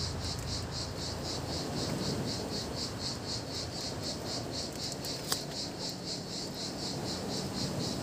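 An insect calling in a steady, even pulsing rhythm of about four pulses a second, over low rustling handling noise, with one short click about five seconds in.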